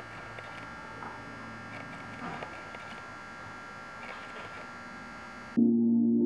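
Steady electrical hum with a few faint clicks and knocks of a vinyl record and tonearm being handled on a portable suitcase record player. Music starts abruptly near the end.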